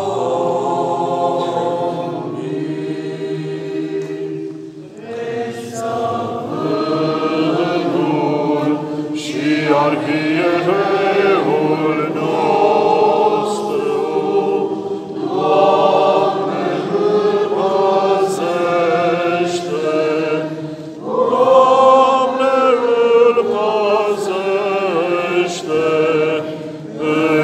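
Choir singing Romanian Orthodox liturgical chant without instruments, several voices holding long notes, with a brief break about five seconds in and another near twenty-one seconds.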